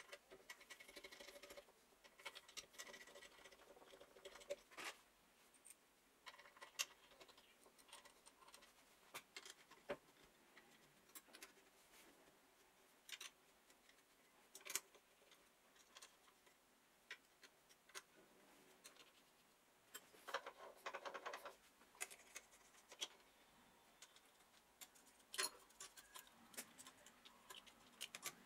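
Quiet, scattered clicks, taps and scrapes of hands and a small tool handling parts on the metal housing of a cut-off saw motor during reassembly, with a longer scraping stretch about twenty seconds in.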